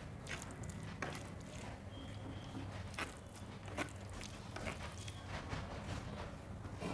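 Close-up eating sounds: wet chewing and squishy mouth noises with irregular soft clicks, over a low steady hum.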